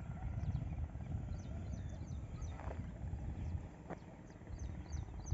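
Small birds chirping: many short, high, downward-sliding calls, several a second, over a low, uneven rumble.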